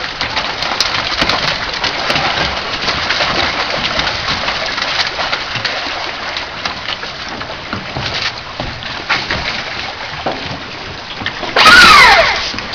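Live sockeye salmon thrashing and splashing in the reef net and the water-filled holding pen, a dense, continuous crackle of slaps and splashes. Near the end there is a short, much louder burst with a falling whine.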